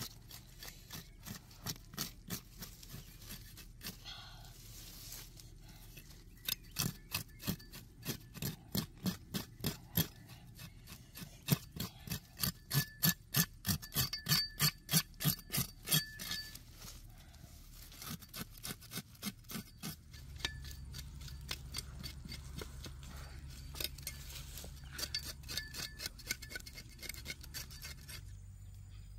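A knife blade scraping the outer layer of scales off a crocodile's skin in quick rhythmic strokes, loudest in the middle, with a pause before the strokes resume more sparsely.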